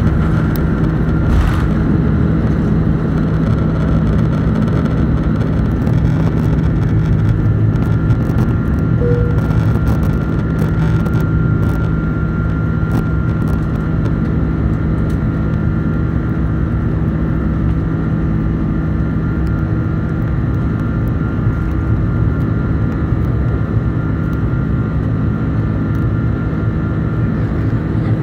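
Airbus A330-300's twin turbofan engines at takeoff thrust, heard from inside the cabin over the wing during liftoff and the initial climb: a loud, steady roar with a low hum and a few held tones.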